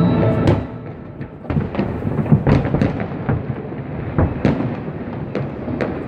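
Aerial fireworks bursting: an irregular string of sharp bangs, several a second at times, over a low continuous rumble.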